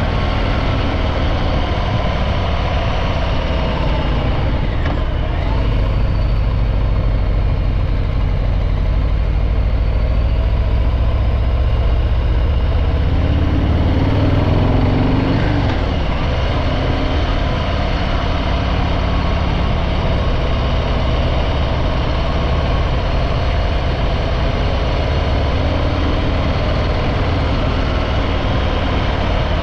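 Stock Harley-Davidson Breakout 114's Milwaukee-Eight 114 V-twin running through its factory exhaust while riding, a steady low engine note that dips and rises a little, slightly louder about halfway through.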